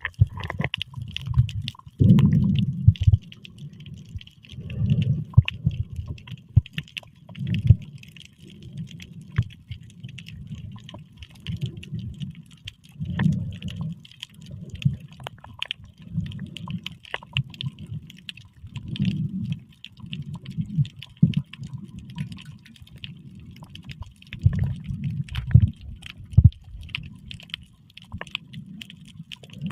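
Muffled water sloshing and gurgling in uneven swells every second or two, with many sharp clicks scattered through it.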